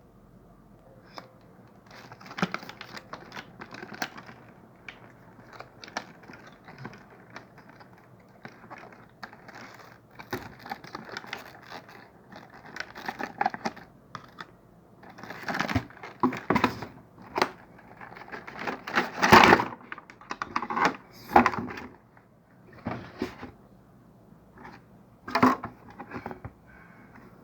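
Hands handling an action camera kit's packaging and plastic parts: irregular clicks, taps and rustling, with louder bursts of handling in the second half.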